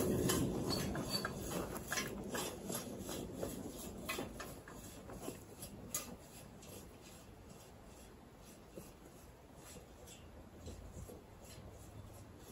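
Steel gridder eraser dragged through loose garden soil: a run of scraping, rattling clicks that grow fainter over the first half as the tool is pulled away.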